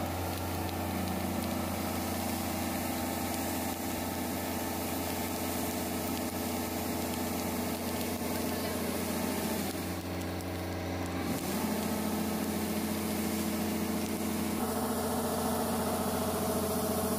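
Kubota combine harvester's diesel engine running steadily while its unloading auger discharges grain into sacks. The engine note shifts in pitch a few times.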